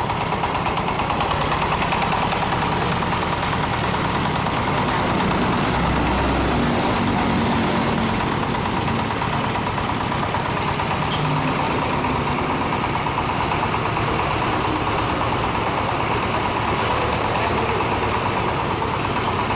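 Diesel engine of a truck-mounted mobile band saw running steadily at a constant speed.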